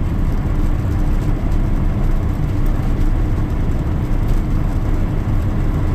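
Heavy diesel semi truck heard from inside the cab while driving under way: a steady, loud rumble of engine and road noise.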